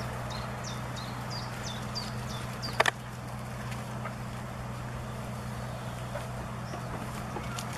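A steady low hum of a distant motor, with a series of short, falling high bird chirps in the first few seconds and a sharp double knock about three seconds in.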